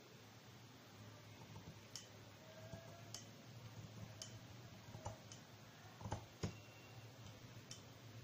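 Scissors cutting through folded cloth: a string of faint, sharp snips of the blades closing, roughly one a second.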